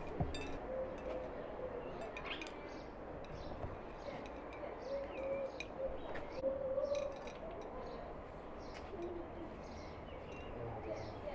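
A dove cooing in short low notes, a few at a time, with small birds chirping and a few light clinks of glassware.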